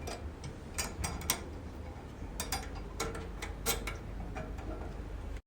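Irregular light clicks and taps of a hand tool tightening screws, metal on metal.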